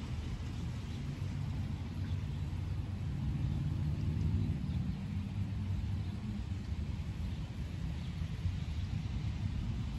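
Distant thunder rumbling low and long, swelling about three seconds in and slowly easing off.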